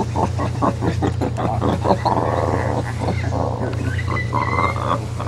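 Howler monkey howling: deep, rasping roars that open with quick rhythmic grunting pulses for about two seconds, then run into longer drawn-out roars.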